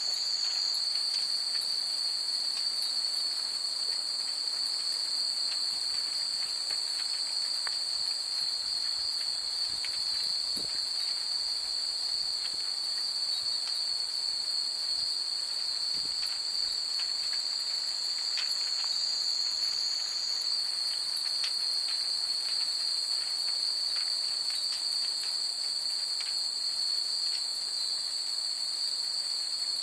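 A steady, high, shrill chorus of night insects, with several singers at different pitches, one of them changing about a second in and again about twenty seconds in. Faint, scattered tinkles of hanging wind chimes sound now and then beneath it.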